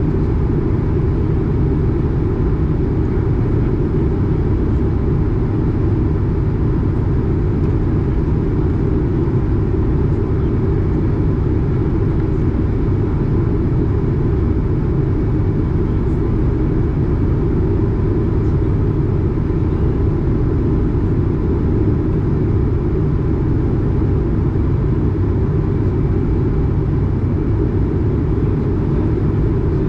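Steady in-flight cabin noise of an Airbus A220, heard from a window seat beside its Pratt & Whitney PW1500G geared-turbofan engine: an even, deep rush of engine and airflow with a faint steady whine above it.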